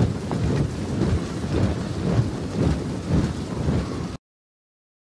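Loud, irregular low rumbling with a steady hiss over it, which cuts off abruptly about four seconds in.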